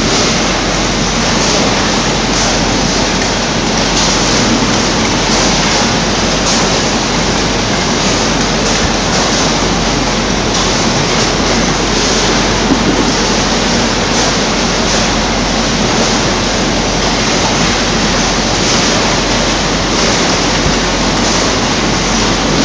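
Loud, steady rushing noise that stays even throughout, with no distinct knocks, rhythm or voices.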